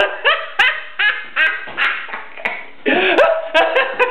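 A man laughing helplessly in a run of short bursts, about three a second, with a longer, louder burst about three seconds in.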